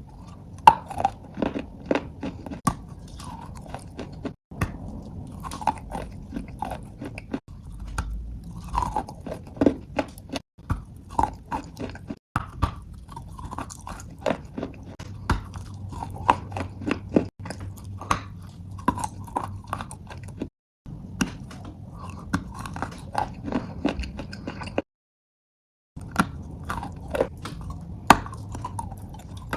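Close-miked chewing of crunchy chalk-type lumps: sharp crunches several times a second, broken by abrupt edit cuts and about a second of silence near the end.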